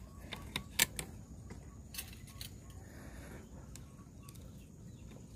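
A few sharp clicks from handling the PCP air rifle between shots, the loudest about a second in and two more around two seconds in.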